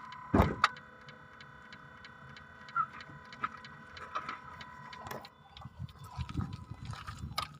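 Ford Mondeo IV's 2.3 L petrol engine running with a quick, even ticking knock, the unexplained knock the owner is recording. A loud thump comes about half a second in, and irregular knocks and clatter follow in the last couple of seconds.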